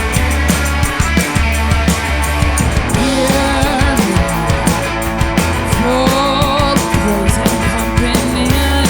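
Rock band playing: drum kit, bass guitar and electric guitar. The drums hit steadily under a constant low bass line, and about three seconds in, bending melodic notes come in over the top.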